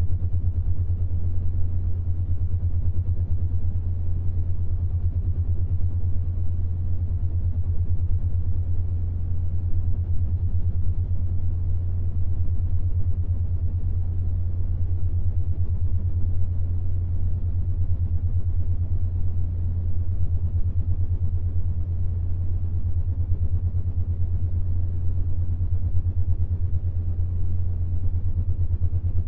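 Steady low-pitched binaural-beat tone, around 100 Hz, meant to pulse at the 7.83 Hz Schumann resonance. Beneath it is a faint wash of noise.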